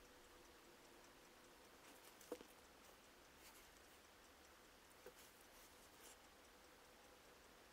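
Near silence: faint room tone with a few soft ticks, the clearest a little over two seconds in and another about five seconds in.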